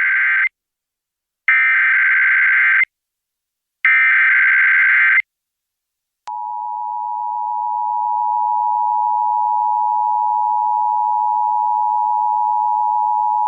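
Emergency Alert System header over FM radio. The end of the first and then two more short bursts of SAME digital data warble, about a second and a half apart. About a second later comes the steady two-tone attention signal (853 and 960 Hz), which opens a required monthly test.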